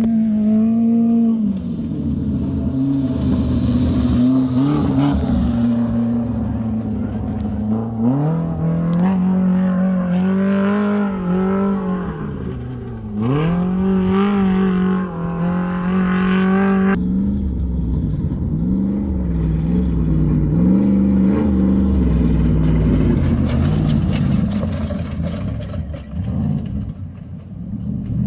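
Off-road race UTV engines running hard as the vehicles pass along the course. The pitch dips and climbs again several times, with sharp rising sweeps as they accelerate. The sound changes abruptly about two-thirds of the way through.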